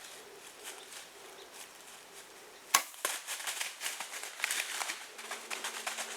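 A single sharp crack about three seconds in, followed by quick irregular crackling and rustling.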